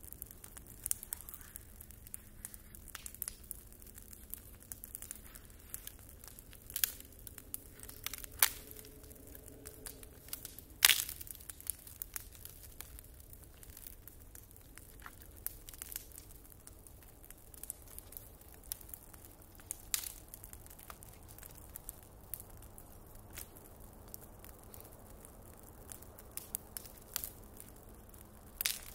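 Wood bonfire crackling, with scattered sharp pops at irregular intervals; the loudest pop comes about eleven seconds in.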